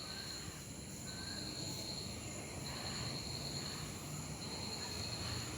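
Quiet room tone with a faint, high-pitched insect trill that comes and goes in stretches of about a second, over a low steady hum.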